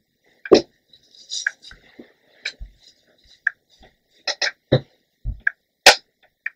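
Handling noise from hands adjusting a bandana and hair close to the microphone: about nine short, separate scrapes and clicks with quiet gaps between.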